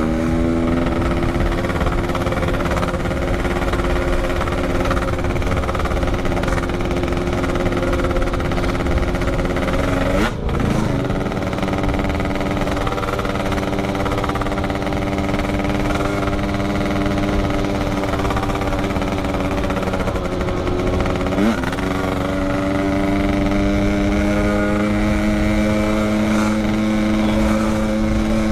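Yamaha RX-King two-stroke motorcycle engine running under way at a steady pitch, revving up at the start, with two brief dips in engine pitch about ten and twenty-one seconds in.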